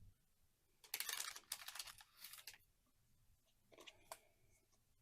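Trading cards and packaging being handled: a short run of scratchy rustling and sliding about a second in, then a few faint clicks.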